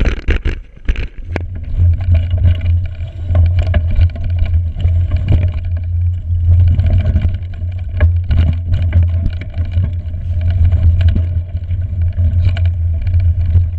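Mountain bike ridden over a frozen, rough forest trail, heard from a handlebar-mounted camera: a loud, steady low rumble with frequent sharp knocks and rattles as the bike jolts over bumps.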